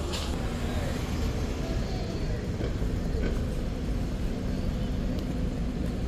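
City bus engine running steadily as the bus moves, over street traffic noise.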